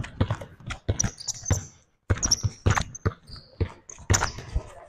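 A basketball being dribbled on a hardwood gym floor, making irregular sharp bounces, mixed with footfalls and brief high squeaks of sneakers on the court.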